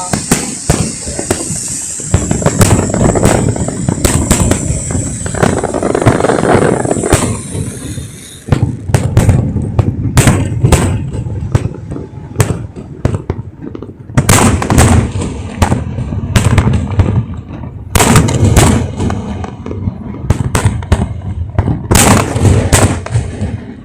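Aerial fireworks shells bursting at close range: a rapid string of sharp bangs, coming more thickly from about eight seconds in.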